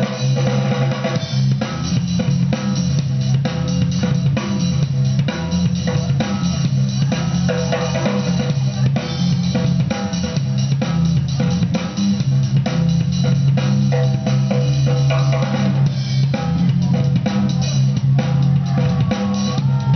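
Loud, drum-heavy battle music played for dancers: a steady beat of kick and snare over heavy bass.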